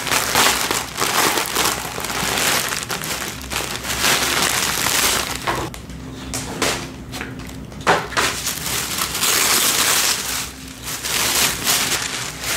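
Clear plastic packaging bag crinkling and rustling as a handbag is handled and pulled out of it, with a couple of sharper crackles around the middle.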